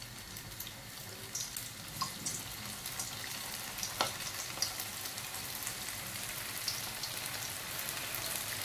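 Briouats (filled pastry triangles) frying in hot oil in a stainless steel pot over medium heat: a steady sizzle with occasional sharp crackles. The sizzle grows a little louder as more pastries are lowered in one by one.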